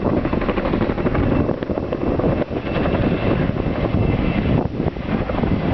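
Boeing CH-47 Chinook tandem-rotor helicopter flying a low display pass, its twin rotors making a rapid, steady blade chop, with a thin high whine holding through the middle of the pass.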